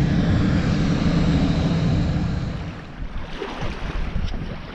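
Low, steady engine rumble from a passing towboat pushing barges, dropping away about two and a half seconds in and leaving fainter wind and water noise.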